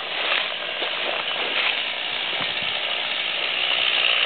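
Chainsaw cutting into brush and wood, heard as a steady hissing noise with scattered snaps and crackles.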